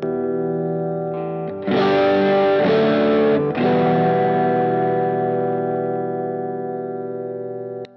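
Electric guitar through the Mason FX KOT overdrive pedal: a ringing chord gets louder and grittier as the pedal is switched on, then distorted chords are strummed about a second and a half in and twice more, left to ring and fade. The strings are muted with a click near the end.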